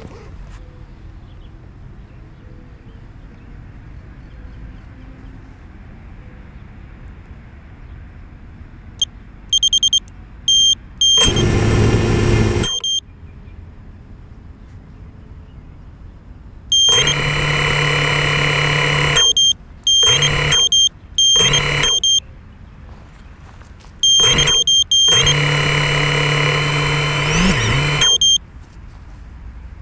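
Small FPV quadcopter resting on the ground: a few short high beeps from its buzzer about nine seconds in, then its brushless motors spin up in several loud bursts of one to three seconds, a steady motor hum that stops abruptly each time. Before the beeps there is only a faint outdoor background.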